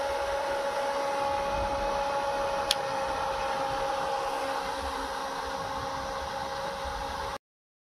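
Small electric fan motor of a homemade evaporative cooler running steadily, a whine of two held tones over an airy hum. One sharp click about three seconds in, and the sound cuts off abruptly near the end.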